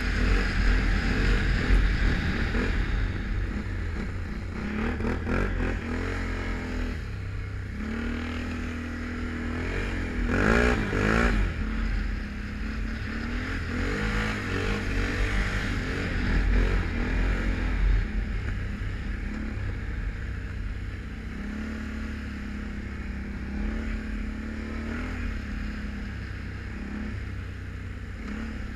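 Can-Am Renegade 1000 ATV's V-twin engine running while riding through snow. The engine note rises and falls with the throttle, with a quick burst of revving about ten seconds in.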